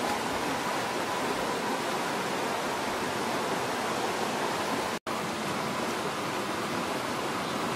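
Steady, even rushing noise with no distinct events, like running water or a hissing outdoor ambience; it cuts out for an instant about five seconds in.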